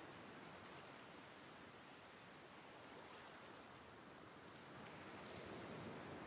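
Faint, gentle surf washing on a beach, a soft even hiss of breaking waves that swells a little near the end.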